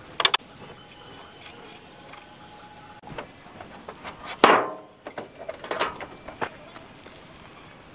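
Light metal clicks from parts being handled in an engine bay, then a loud scraping creak about halfway through as the rusted steel hood of an old off-road vehicle is swung down. Knocks and clatter on the metal body panels follow.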